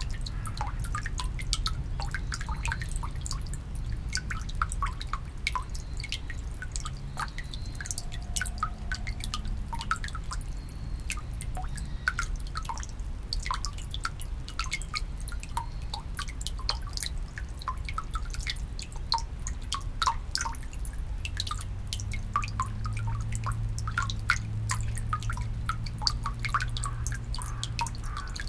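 Water from the bamboo spout of a shrine purification basin (temizuya) dripping and splashing into the stone basin, with many irregular drops over a low steady rumble. A low steady hum joins about two-thirds of the way in.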